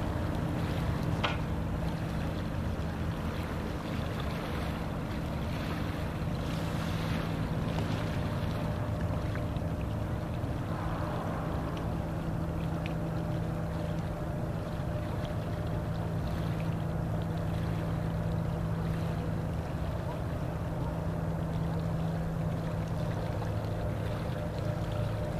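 Boat motor running at a steady hum as the boat moves along, with wind and water noise on the microphone. A single click about a second in.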